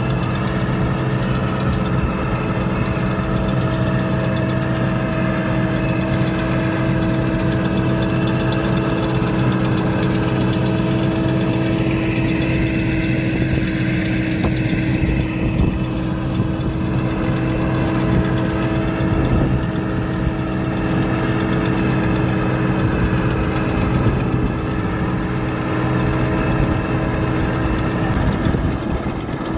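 Combine harvester running steadily, its engine and machinery holding an even pitch.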